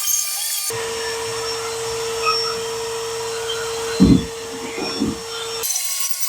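A workshop machine's motor running with a steady whine over a rushing hiss, starting abruptly about a second in and cutting off near the end, with a low thump about four seconds in.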